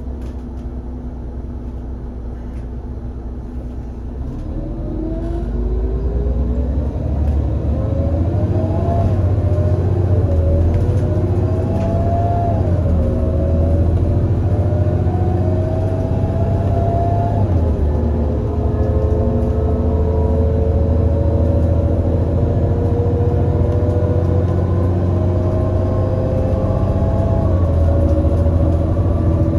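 Irisbus Citelis 18 CNG bus's IVECO Cursor 8 six-cylinder engine and ZF Ecomat six-speed automatic gearbox pulling away and accelerating. After a few seconds at low revs it grows louder, with a rising whine that drops back at upshifts about 8, 13 and 17 seconds in, then one long slow climb in a higher gear.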